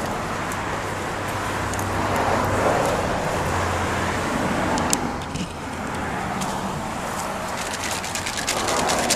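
Road traffic noise: a steady rush that swells slightly and fades, with a low hum underneath and a single sharp click about five seconds in.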